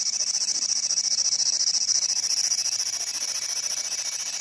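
P-SB11 spirit box sweeping through radio frequencies, its speaker giving a steady high hiss of radio static.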